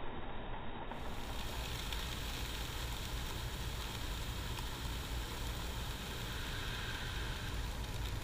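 Hard red winter wheat poured in a steady stream from a bucket into a plastic tub, a continuous hiss of falling kernels, over the steady rush of a box fan blowing through the falling grain to winnow out the chaff.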